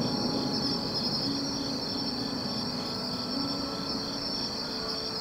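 Crickets and other night insects chirping: a steady high trill with a softer chirp pulsing about three times a second.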